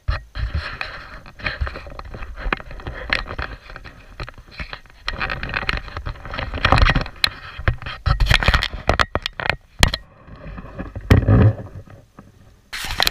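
Handling noise from a hand-held GoPro: irregular scraping, crackling and knocking against the camera, with heavy low rumbling bumps.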